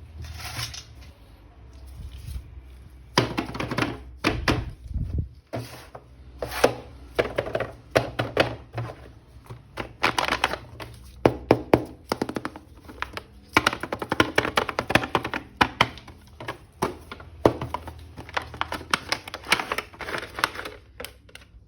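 Plastic action-figure toys and their packaging being handled: many quick, irregular clicks, taps and knocks, sparse for the first three seconds and then coming in dense runs.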